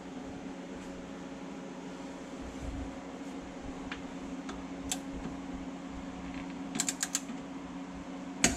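Steady fan hum under scattered light clicks of hand tools and hardware as the front differential skid plate is worked on. Near the end comes a quick run of four or five clicks, then a sharper click.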